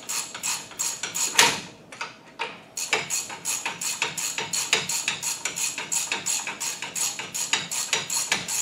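Metal tool clicking at a car's front brake hardware, with an even rhythm of about four or five clicks a second. A single louder metal knock comes about a second and a half in.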